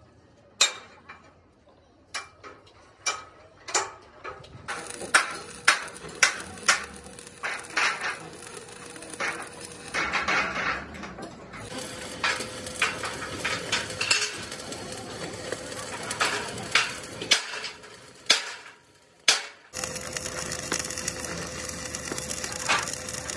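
Sharp metallic knocks on the steel truck frame in the first few seconds, then stick (arc) welding on the frame rail: the arc crackles and spits. The welding becomes an even, continuous crackle from about two-thirds of the way in.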